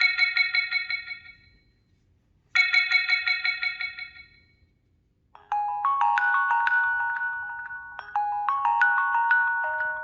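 Ringtones on a T-Mobile HTC HD2 phone. A fast, repeating bell-like trill rings twice, each ring fading out. About five and a half seconds in, a different ringtone starts: a marimba-like melody of held notes.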